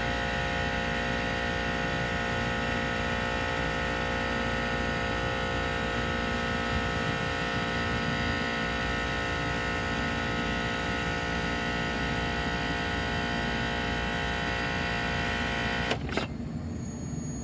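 AAON rooftop air-conditioning unit running with both refrigeration compressors on in cooling mode: a steady mechanical hum with several held tones. Near the end a click sounds and the hum drops away sharply.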